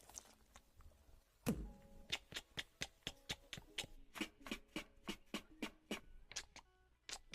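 A single sharp click, then a steady run of sharp ticking clicks, about three a second, like a clock ticking, stopping shortly before the end.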